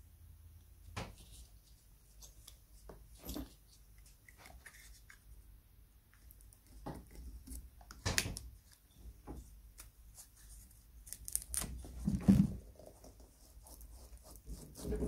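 Scattered clicks, scrapes and small knocks of hand work on an old wooden toy head: rusty wire and a leather strap being worked loose with a small blade and pliers. The loudest is a dull knock about twelve seconds in.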